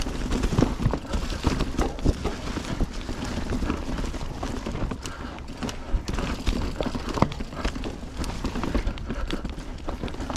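Mountain bike riding over a dirt trail: tyres rolling and the bike rattling and clattering irregularly over bumps, over a constant low rumble.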